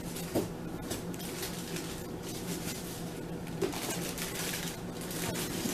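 Plastic-wrapped frozen food packages being handled and moved in a freezer: crinkling rustles with a couple of light knocks, over a steady low hum.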